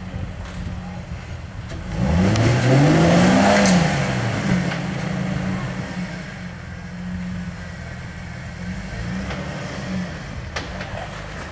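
Off-road rock crawler's engine idling, then revving up hard about two seconds in, climbing in pitch for about a second and a half before dropping back to idle. A shorter, smaller rev comes near the end.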